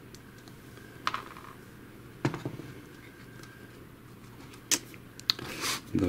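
A screwdriver and small screws clicking and tapping against the plastic chassis of a robot vacuum being taken apart: a few separate sharp clicks, the loudest about two seconds in, and a brief rustle of handling near the end, over a faint steady hum.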